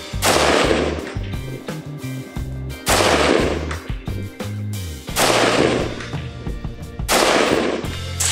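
Four single rifle shots from a 5.56 AR-15 (Daniel Defense DDM4 V7) in slow aimed fire, about two seconds apart, each dying away over about a second, over background music with a bass line.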